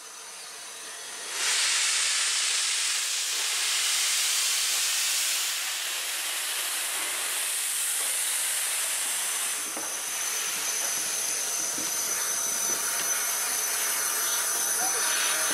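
Merchant Navy class steam locomotive 35018 British India Line moving slowly with its cylinder drain cocks open, jetting steam with a loud hiss. The hiss comes in suddenly about a second and a half in and eases a little after about ten seconds.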